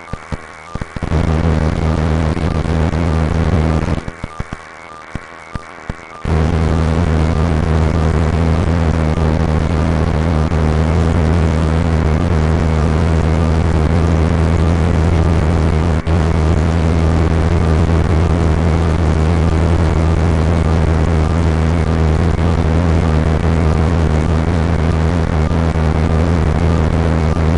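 A loud, steady low mechanical drone that starts abruptly about a second in, cuts out for about two seconds near four seconds, then comes back and holds unchanged in pitch.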